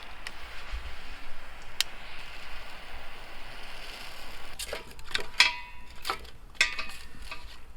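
Firewood being handled and set into a metal fire pit: a steady hiss, then from about halfway a run of knocks and clinks, some with a short metallic ring.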